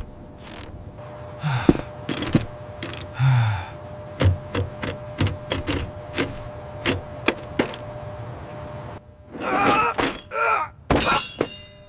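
Spooky creaking and knocking sound effects from the unfinished building: a run of sharp knocks and thuds over a low rumble and a faint steady hum. A short groaning vocal sound comes about ten seconds in.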